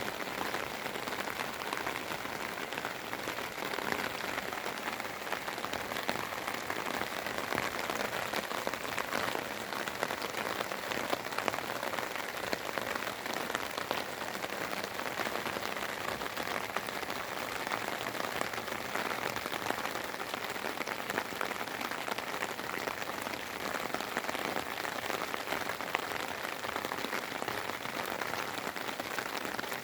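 Steady spring rain falling, a continuous hiss of rain with many small drops ticking.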